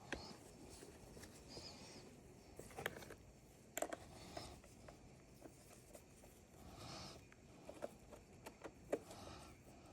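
Scattered light clicks and taps of small tools and parts being handled during work on a chainsaw, with quiet room tone in between.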